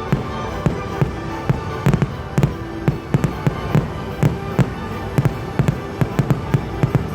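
Fireworks bursting in quick, irregular succession, several sharp bangs a second, over music.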